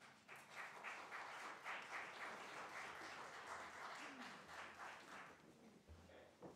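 Congregation applauding, fading out after about five seconds.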